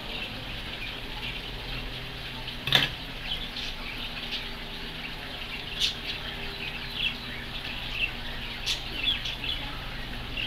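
Small birds chirping steadily in the background, with a few sharp clicks and taps as small objects are handled on the table; the loudest click comes nearly three seconds in.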